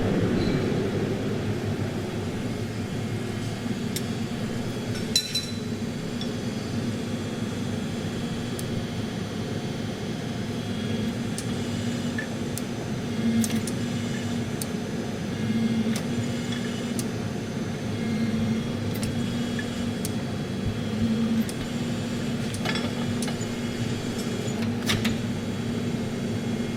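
Steady drone of a running forge burner and blower, its low hum swelling now and then, with a few light metal clinks.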